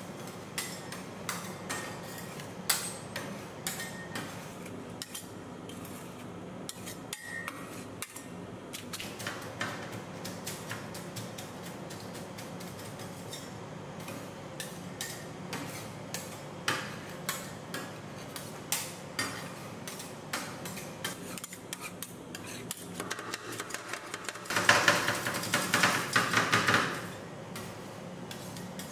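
Metal spatulas tapping and scraping on the steel cold plate of an ice cream roll maker, chopping the ingredients into the ice cream, with a fast, louder run of chopping a few seconds before the end. A steady low hum runs underneath.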